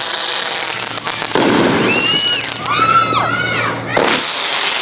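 Fireworks going off: loud hissing, crackling bursts that start suddenly twice, and in between several overlapping whistles that rise and fall in pitch.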